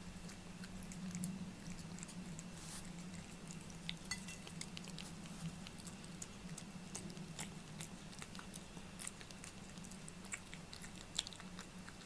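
A cat licking and chewing food off a ceramic plate: irregular small wet clicks and smacks, with its tongue and teeth now and then touching the plate. A steady low hum runs underneath.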